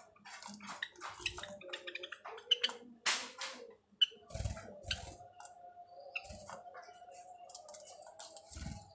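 Java sparrows coming down to a food tray: a run of sharp clicks and short high chip notes, then a few soft low thumps of wingbeats and landings.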